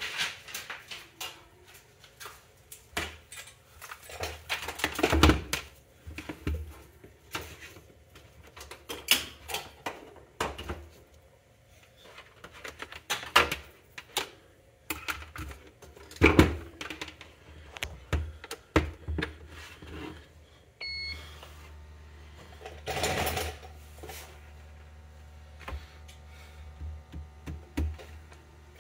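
Handling knocks and clicks as a power adapter's cord is laid out and plugged into a TSI PortaCount Plus respirator fit tester. About two-thirds of the way through, a short high beep sounds and a steady low hum starts and keeps going.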